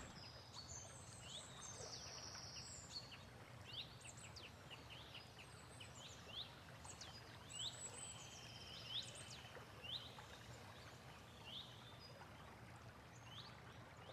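Faint birdsong: many short, high-pitched rising chirps and a few brief trills, scattered throughout.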